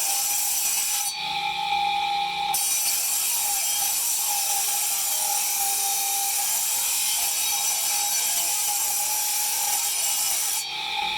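Electric grinder with a steady motor whine, grinding marble with a gritty, hissing scrape. The grinding noise breaks off for a moment about a second in and again near the end while the motor keeps whining.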